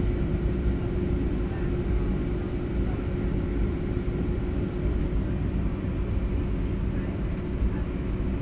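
Steady low drone of a Boeing 737-700 heard from inside the passenger cabin: engine and airflow noise with a constant hum tone, unchanging throughout.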